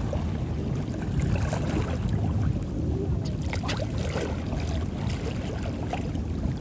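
Choppy sea water lapping and splashing close by, a few sharper splashes over a steady low rumble.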